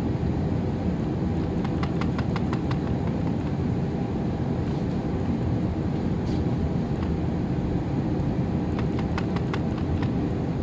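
Quick runs of light clicks from repeated presses on a Honeywell VisionPRO 8000 thermostat's touchscreen arrow buttons as a password digit is stepped up: about seven in a row, a few single ones, then another run of four or five near the end. A steady low rumble goes on underneath.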